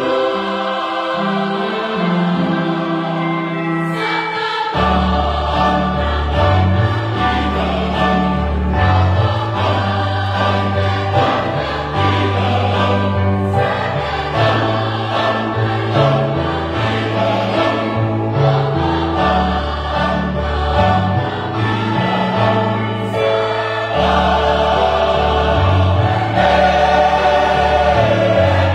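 Church choir singing a Fijian hymn in harmony. Deep bass notes come in about five seconds in and move with the chord changes.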